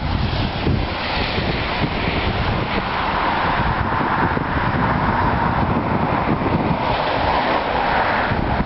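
Wind rumbling on the microphone over a steady hiss of rain and car tyres on a wet street.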